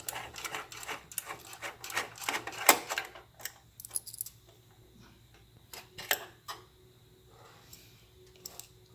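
Screwdriver backing out the tiny M.2 mounting screw on a motherboard: a run of small metal clicks and scrapes over the first three seconds, sharpest just before three seconds in, then a few scattered clicks.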